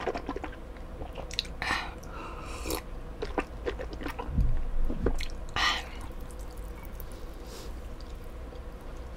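Close-miked mouth sounds of a person eating: chewing and swallowing with small wet clicks and a few short breathy sounds. A soft low thump comes a little past four seconds in.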